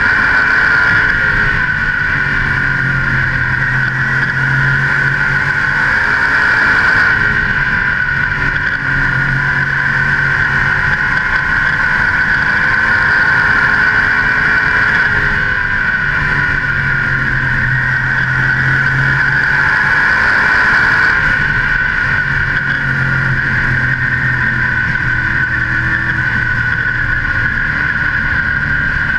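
A modified race car's engine at racing speed, heard from a camera on its hood. Its pitch climbs on each straight and drops back into each turn, about every seven seconds, under a steady rush of wind on the microphone.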